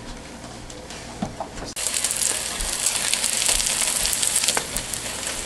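Tortilla española (beaten eggs over fried potatoes and onion) sizzling in hot oil in a frying pan. A few faint clicks at first, then a loud, dense sizzle starts abruptly a little under two seconds in.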